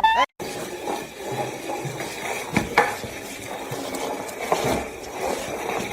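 A few short clicks and knocks, like light household clatter, over a steady background hiss.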